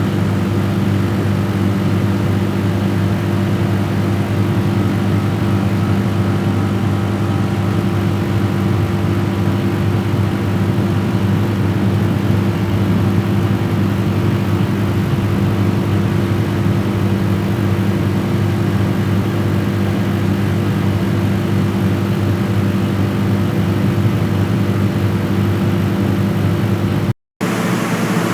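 A steady, unchanging low mechanical hum, engine-like, that cuts out abruptly near the end and gives way to a different, thinner hissing hum.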